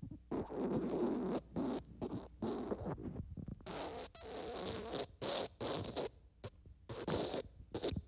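Wet, sputtering diarrhea fart sound effect: a rapid string of short, noisy bursts, some held a little longer, broken by brief gaps.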